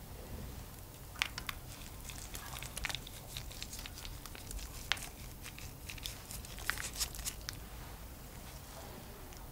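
Faint, scattered light crackles and ticks as chopped fresh parsley is sprinkled by hand onto a hot baked potato pizza.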